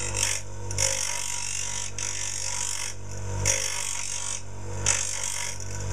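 Electric bench grinder running with a steady motor hum while a small steel armature is pressed against the grinding wheel in repeated passes, each pass a harsh hissing grind of metal on the stone, with short breaks between passes.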